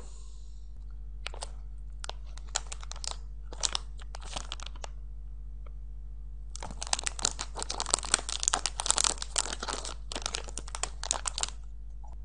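Plastic wrapper of a blueberry mochi snack crinkling in the hands in a few short spells, then a longer, louder spell of crinkling and tearing about halfway through as the packet is torn open.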